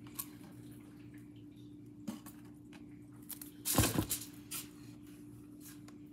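Making a sub sandwich: soft squishing and small clicks as mayonnaise is spread and lunch meat is laid on the sub bread, with a short clatter about four seconds in. A steady low hum runs underneath.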